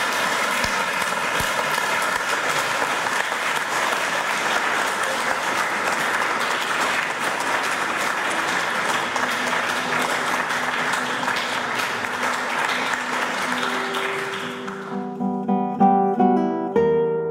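Audience applauding steadily for a concert guitarist. About fifteen seconds in the clapping fades out and solo classical guitar music begins, single plucked notes ringing.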